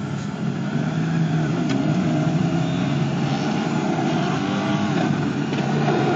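Small four-wheel-drive SUV engine running hard under load, its pitch rising and falling with throttle as the vehicle claws its way out of a deep mud pit.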